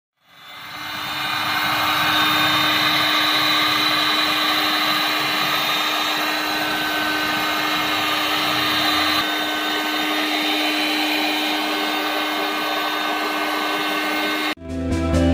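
A small electric motor-driven workshop tool running steadily with a constant hum and hiss, spinning up over the first couple of seconds and cutting off suddenly near the end.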